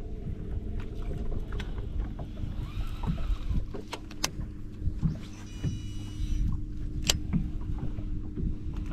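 Steady electric hum of a bass boat's trolling motor over a low rumble of water against the hull, with a few sharp clicks and a brief high warbling sound about five seconds in.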